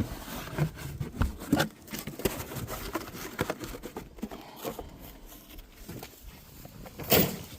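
Irregular clicks, knocks and rustling of a boxed car starter and tools being handled, with a louder knock near the end.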